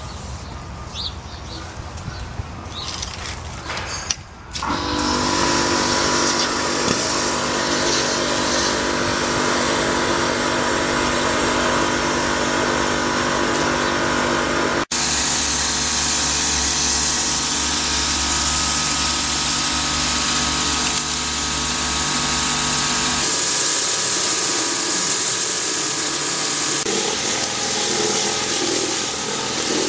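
Nilfisk Compact C125 electric pressure washer running under load: a steady motor and pump hum with the hiss of water forced through the hose. It starts about four seconds in after a quieter stretch and cuts out for an instant about fifteen seconds in.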